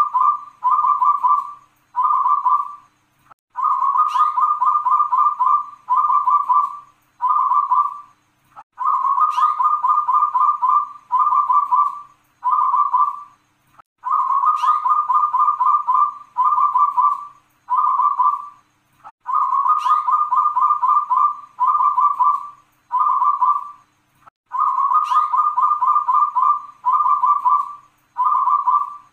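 Zebra dove (perkutut) singing its cooing song over and over, about once every five seconds. Each phrase opens with a sharp rising note, runs into a long rolling coo, and ends with three short coos.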